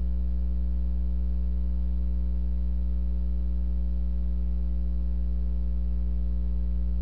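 Steady electrical mains hum: a loud low drone with a ladder of fainter, evenly spaced higher tones above it.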